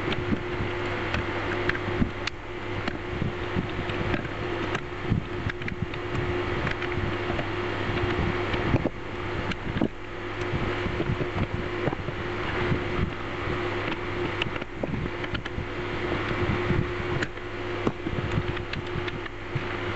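Small metal clicks and knocks, irregular throughout, as the parts of a hand-cranked grinder are handled and fitted together, over a steady hum.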